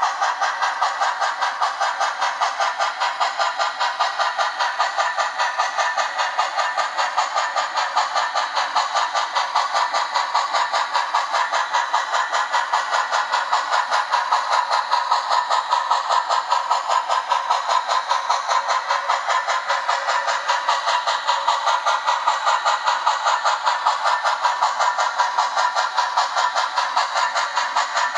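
Model steam locomotive's sound decoder playing a steady exhaust chuff through its small onboard speaker, about four to five chuffs a second, thin and without bass, as the locomotive runs at a steady speed.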